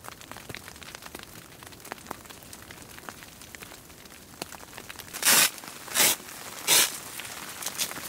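Footsteps crunching in snow: three evenly spaced steps in the last few seconds, over faint scattered ticking and crackling.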